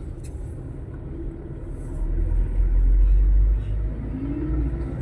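Road traffic with a deep vehicle rumble that swells about two seconds in and eases off a second and a half later.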